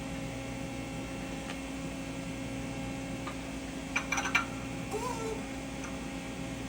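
Steady electrical hum, with a cluster of light clicks about four seconds in and a short squeak that rises and falls about a second later.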